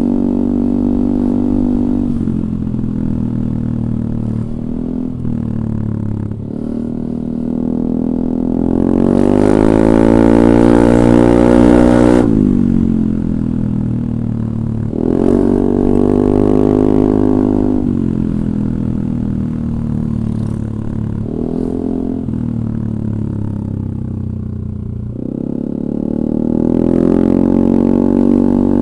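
Yamaha Aerox 155 scooter's single-cylinder engine breathing through a DSM Cobra racing exhaust with a 38 mm inlet, idling and revved up four times: three longer revs held for a few seconds, one quick blip, each dropping back to idle. The longest rev, about a third of the way in, cuts off sharply.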